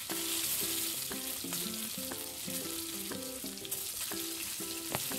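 Ridge gourd and drumstick pieces frying in hot mustard oil in a kadai, with a steady sizzle that eases slightly after about three and a half seconds, and a few sharp clicks as a spatula turns them. Soft background music plays a simple repeating tune of short notes.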